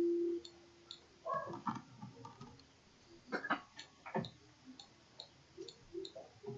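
Faint ticking, evenly spaced about twice a second, like a clock, under a quiet room. A steady hummed tone ends about half a second in, and a few soft clicks and murmurs follow.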